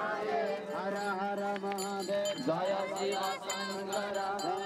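Many voices chanting together over a held low note, with small bells ringing high and steady through it.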